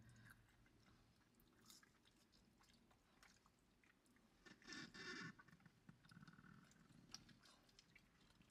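Faint chewing of mouthfuls of hamburger, with small wet mouth clicks and smacks scattered through, and a slightly louder burst of mouth noise about halfway through.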